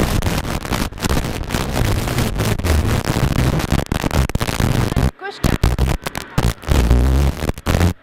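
Rally car engine heard from inside the cockpit, running loud and choppy with many short breaks and a brief drop about five seconds in.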